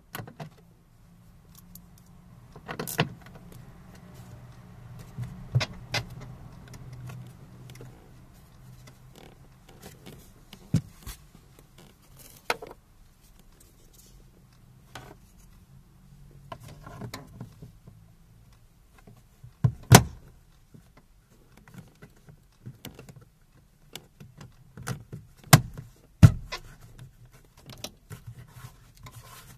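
Irregular plastic clicks and knocks as a door pull handle is pressed and fitted onto a Renault Clio 1 door trim panel, the loudest knock about two-thirds of the way through. A low steady hum runs under the first half.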